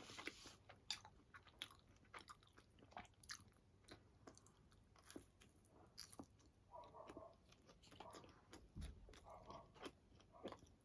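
A person faintly biting and chewing leftover pizza close to the microphone, with many small irregular crunches and mouth clicks.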